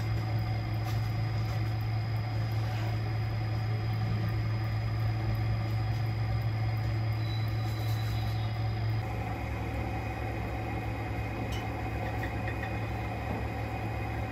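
Motorized pottery wheel running with a steady, low electric hum as clay is thrown on it; the hum changes a little about nine seconds in.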